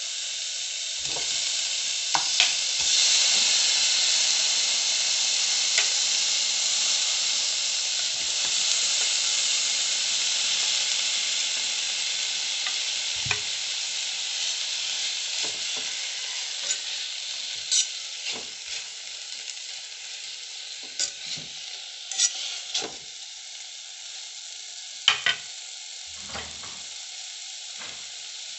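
Chicken and potato pieces sizzling in a hot saucepan as they sauté, the sizzle swelling in the first few seconds and then slowly dying down. A spatula stirs them, with scattered knocks and scrapes against the pan.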